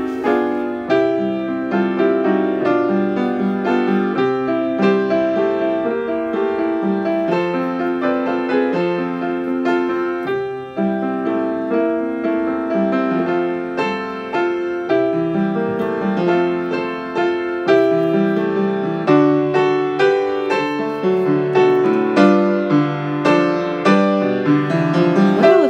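Background music played on a keyboard: a continuous, steady run of struck notes.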